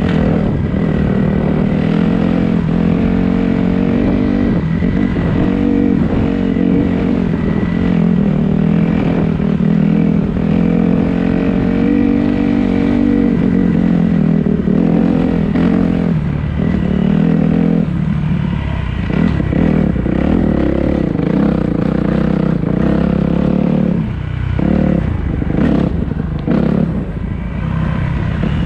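Dirt bike engine running under throttle while riding a rough grass and dirt trail, the revs rising and falling as the rider works the throttle and easing off for a moment near the end, with rattling from the bike over the bumps.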